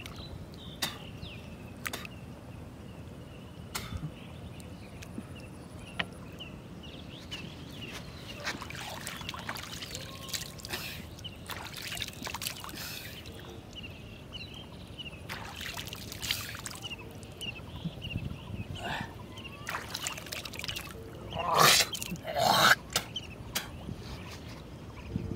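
Water trickling and splashing as a wet rope is hauled in hand over hand from shallow water, with small high chirps repeating in the background. Two louder splashy bursts come a few seconds before the end.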